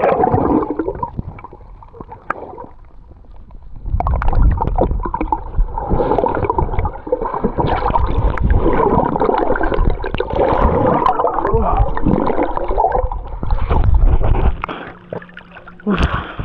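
Underwater gurgling and bubbling of water stirred by a swimmer, muffled and crackly, quieter for a couple of seconds and then busier from about four seconds in. A brief splash near the end as the view breaks the surface.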